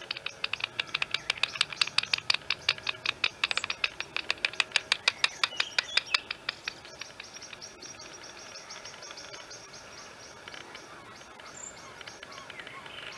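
Heterodyne bat detector tuned to 28 kHz turning a serotine bat's echolocation calls into a rapid, regular train of clicks, about eight a second. The clicks are loud for the first six seconds or so, then fainter until near the end.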